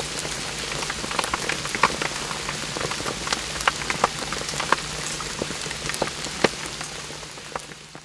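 Rain falling on a garden pond: a steady hiss of drops hitting the water, with many sharp single drop splashes standing out. It fades out near the end.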